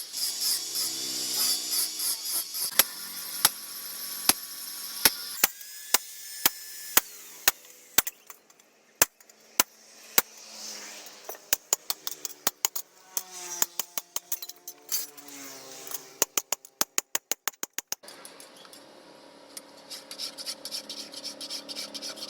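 Metal being struck again and again by a hand tool: sharp blows, some leaving a short metallic ring, spaced a second or so apart at first, then a fast run of about five a second some way past the middle.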